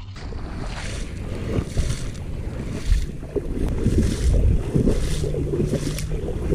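Someone wading through shallow marsh water, splashing with each step in an uneven series, with wind buffeting the microphone.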